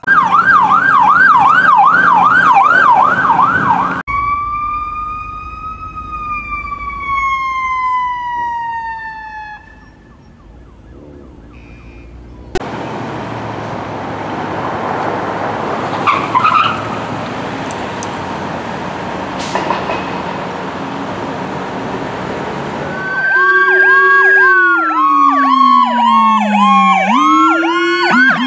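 Emergency vehicle sirens on responding fire apparatus and an ambulance. A fast warbling yelp comes first, then a slow wail that rises and then falls away. After a stretch of steady road and engine noise, several sirens sound together near the end, one of them a deeper tone that slides down and swoops back up.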